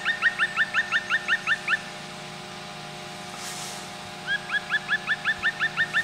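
Black woodpecker (Dryocopus martius) calling a fast series of short rising notes, about seven a second. The series breaks off before two seconds in and starts again a little after four seconds, over a faint steady hum.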